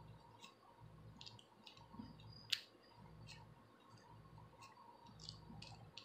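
Faint, irregular scratching and clicking as a plastic tail comb is worked against a scalp and through hair to lift dandruff flakes, with long acrylic nails holding the hair. One sharper click comes about two and a half seconds in.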